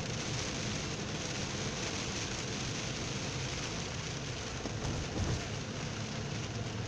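Steady noise of heavy rain on a car's roof and windscreen, heard from inside the car as it drives on a wet road, with a low hum underneath.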